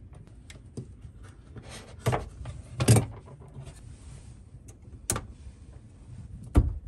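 Handling of plastic RO tubing and a plastic quick-connect fitting: four separate sharp clicks and knocks, the loudest about three seconds in and near the end, with fainter ticks between, as the red feed tubing is pushed into the feed water adapter's fitting.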